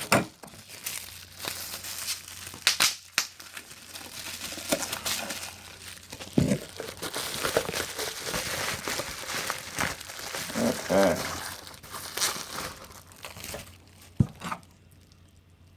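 Packing wrap crinkling, crumpling and tearing as it is pulled off a mug by hand, with scattered sharp crackles. It dies down near the end.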